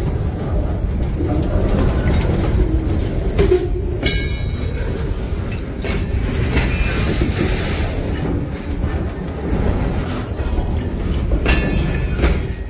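CSX local freight train led by a GP40-2 diesel locomotive rolling past, a steady low rumble with wheels clicking over the rails. A brief high squeal comes about four seconds in.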